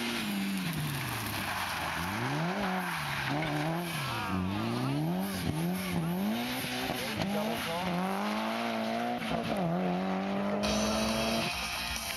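A race car's engine revving up and down as it is driven hard through a cone slalom, its pitch rising and falling about once a second, then held higher and steady before it cuts off near the end.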